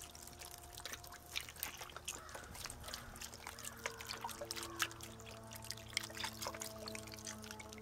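Chicken broth pouring from a carton into a cast-iron Dutch oven, landing on a turkey breast and vegetables as a stream of small irregular splashes.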